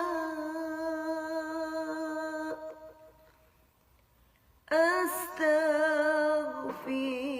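A solo voice chanting the istighfar in a slow melody. It holds a long note that trails off to near silence about three seconds in, then starts a new held note with a wavering pitch a little before five seconds in.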